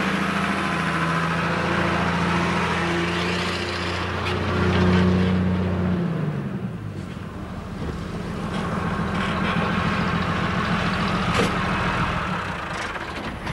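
A vehicle engine running steadily. About five to six seconds in its pitch falls, as when the engine slows, and it then keeps running with a rougher, steady hum.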